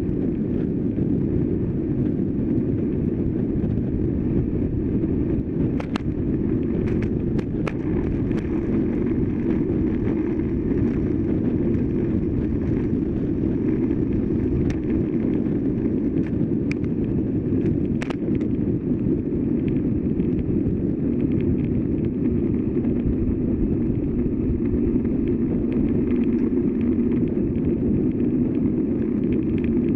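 Steady rush of wind over a bicycle-mounted camera's microphone and tyre noise on asphalt while riding at speed, with a few sharp clicks scattered through.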